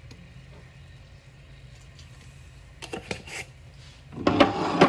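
Spice jars being handled and swapped: a few light clicks about three seconds in, then a louder rattling clatter near the end, over a faint low hum.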